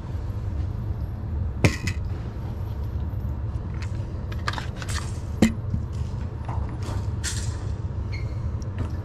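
Two sharp gunshots about four seconds apart at a shooting range, over a steady low rumble, with light clicks and rattles of gear being handled around them.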